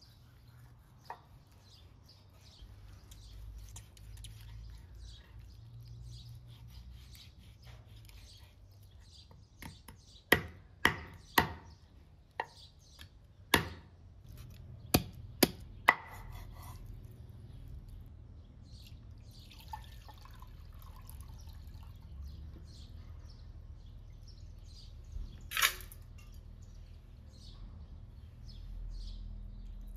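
Chef's knife cutting raw lamb on a wooden cutting board: a quick run of about eight sharp knocks of the blade hitting the board in about six seconds, then one more knock later.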